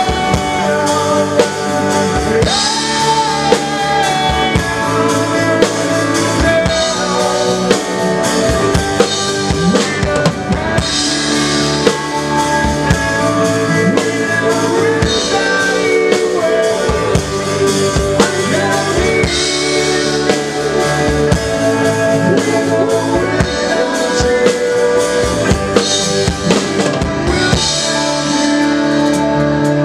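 A live band playing, with a drum kit close to the microphone: snare, bass drum and cymbals, over electric guitar. Cymbal washes come in every few seconds.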